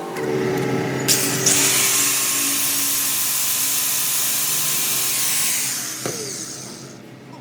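A power tool working metal with a loud hiss for about five seconds; its motor note then falls as it winds down near the end.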